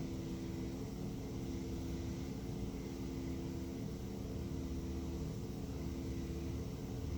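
A steady mechanical hum with several held tones, like an electric motor running.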